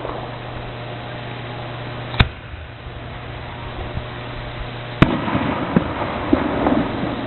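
Aerial fireworks shells bursting: a sharp bang about two seconds in and another about five seconds in, the second followed by a scatter of smaller pops and crackles.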